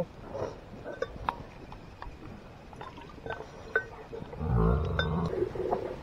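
Cattle giving a short, low call about four and a half seconds in, amid scattered light knocks and clicks.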